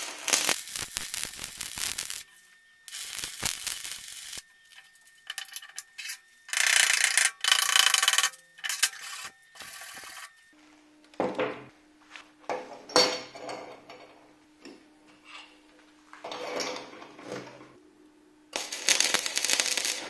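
Stick arc welding with a homemade welder built from a refrigerator compressor's motor windings: the arc crackles and sizzles in several runs of one to two seconds. Partway through, a steel wire brush scrubs and scrapes the weld in short irregular strokes over a steady faint hum, and near the end the arc crackles again.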